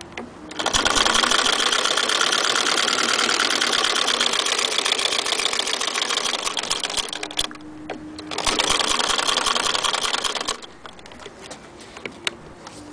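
1902 Singer 48K hand-crank sewing machine stitching through felt with a fast, even mechanical clatter. It stops about seven seconds in, runs again for about two seconds, then leaves only a few faint clicks.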